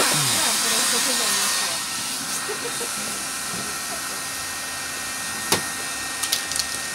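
Aerosol spray-paint can hissing steadily, cutting off about two seconds in. After that, faint voices murmur in the background and there is one sharp tap near the end.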